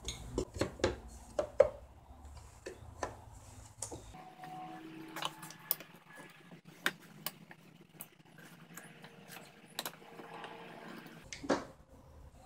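Scattered light clicks and taps of a hand screwdriver driving screws into the wooden jaw of a sharpening-stone holder and of the stone and wooden parts being handled, with one louder knock near the end.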